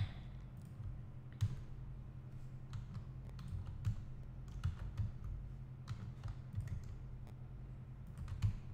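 Computer keyboard keystrokes and mouse clicks, scattered and irregular, a click every half second to a second or so, over a low steady hum.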